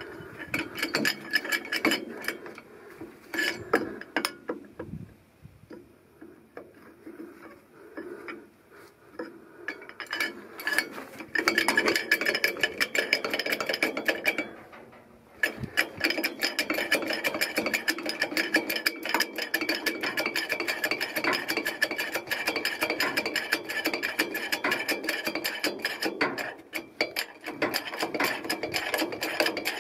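Hydraulic 20-ton bottle jack being pumped with its steel lever handle to lift an axle: a long run of rapid metallic clicking and clanking. Scattered handling clicks come first, the steady pumping starts about eleven seconds in, and there is a short pause about fifteen seconds in.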